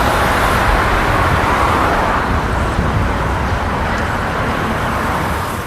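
Steady traffic on a busy city road, many cars and trucks going by as a continuous wash of noise over a low engine rumble. It begins to fade out near the end.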